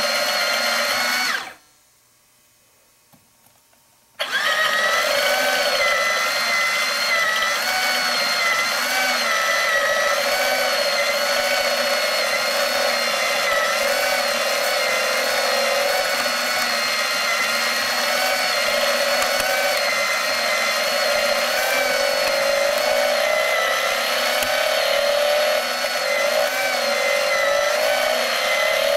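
Small electric motor of a BMW R90S engine plastic model kit running, driving its pistons and painted transmission gears with a steady whine whose pitch wavers slightly. The builder suspects the paint makes the gears move less smoothly. The sound cuts out for about two and a half seconds near the start, then runs again.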